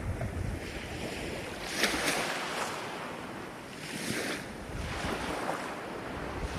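Ocean waves washing on the shore, with a hissing surge of surf about two seconds in and again about four seconds in.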